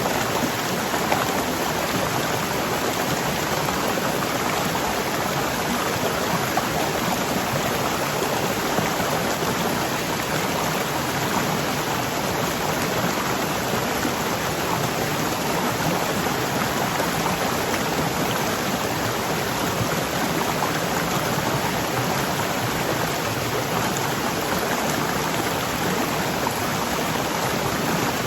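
Waterfall rushing: a dense, steady roar of falling water.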